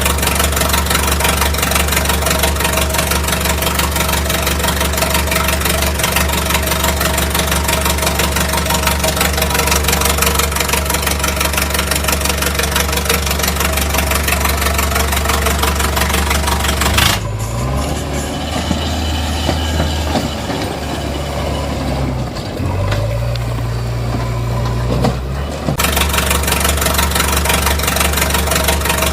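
An engine running steadily with an even low hum. About two-thirds of the way in, its pitch shifts and glides up and down for several seconds before it settles back to the same steady running.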